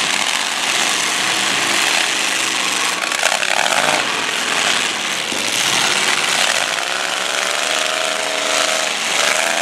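Several demolition derby cars' engines running hard and revving, over a thick rush of noise. One engine climbs in pitch through the second half as its wheels spin in the mud.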